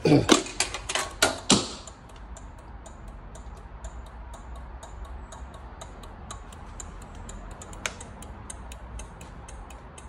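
BMW K100 turn-signal flasher relay, modified for LED indicators, ticking steadily as the signals flash on and off. The steady ticking shows the relay is now cycling properly with the low-resistance LEDs. A few loud knocks sound in the first second and a half.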